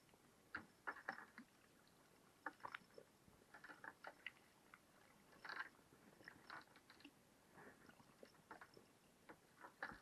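Near silence broken by faint, scattered clicks and soft crackles.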